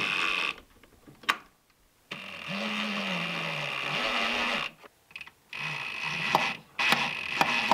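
Ryobi 18V cordless power driver driving screws through a steel drawer glide into plywood, in three runs of motor whine a couple of seconds each. One run ends about half a second in, the next starts about two seconds in, and the last starts about five and a half seconds in. The motor's pitch rises and then sags during the middle run as the screw goes in.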